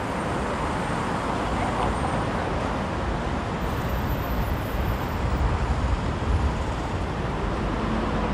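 Steady city street noise with a low rumble of road traffic.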